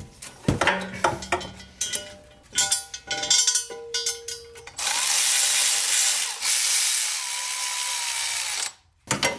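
Hand tools and metal parts clanking, with ratchet clicking and short metallic rings. Then a steady, loud hissing rush starts suddenly, runs for about four seconds and cuts off abruptly.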